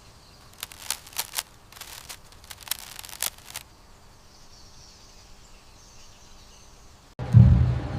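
Faint outdoor background with a quick run of short, sharp high ticks in the first few seconds. A loud, low, pulsing beat starts near the end.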